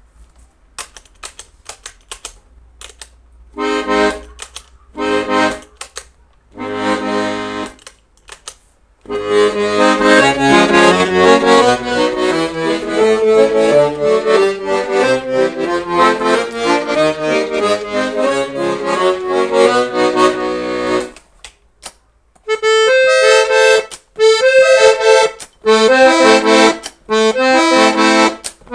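Weltmeister Seperato accordion being played: a few faint clicks at first, then three short held chords, a long continuous passage of melody over chords, and after a brief pause a run of short separate chords.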